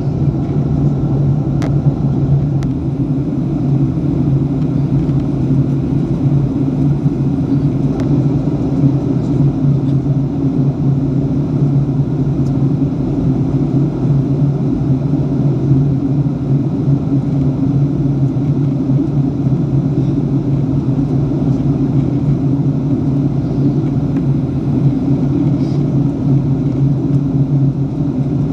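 Steady low drone of a jet airliner's engines and airflow, heard inside the passenger cabin in cruise flight.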